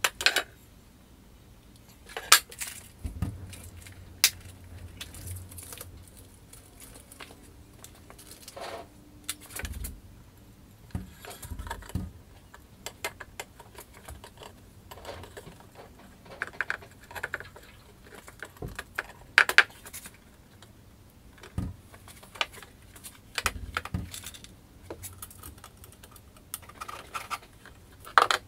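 Aluminium frame rails and small metal parts of an Ortur Laser Master 3 laser engraver kit being handled and set down on a wooden workbench: scattered clicks, clinks and knocks, with a few dull thumps.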